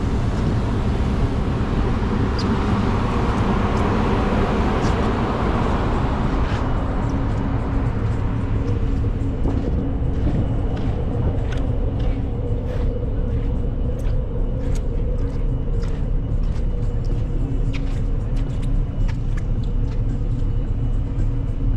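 Steady low rumble and hum of a large car ferry's engines, heard on board. A broad rush of noise in the first few seconds fades, and faint scattered clicks and knocks follow.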